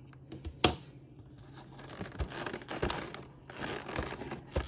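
Paperboard flaps of a cardboard toy box being prised open by hand, scraping and tearing, with a sharp click just over half a second in and a few more later.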